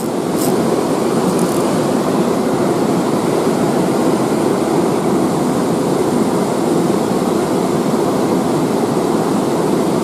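Shallow, rocky river running fast over stones: a steady rushing of water.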